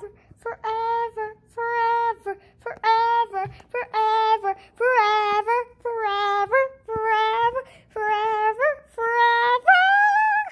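A child singing a simple tune unaccompanied: a string of short, high held notes, with one longer note near the end.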